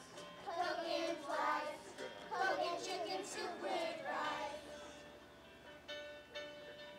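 A group of young children singing together in unison over musical accompaniment. Their voices stop about four and a half seconds in, leaving the accompaniment playing more quietly.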